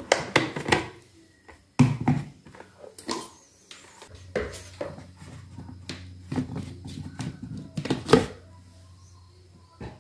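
Scattered knocks and clicks of kitchen containers and utensils being handled, with a loud clunk about eight seconds in, over a faint steady low hum.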